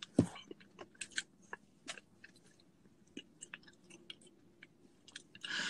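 Faint scattered clicks and ticks, with one louder short sound just after the start. A steady hiss comes in shortly before the end.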